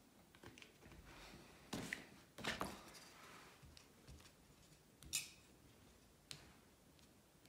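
Faint scrapes and taps of a stick spreading poured epoxy resin across a wood-slab mould, with a few sharper scrapes about two, two and a half and five seconds in.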